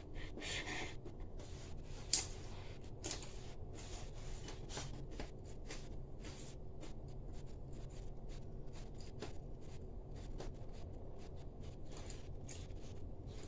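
Eating sounds: chewing a mouthful of rice with small irregular mouth clicks, the sharpest about two seconds in, and fingers mixing rice on a plate, over a low steady hum.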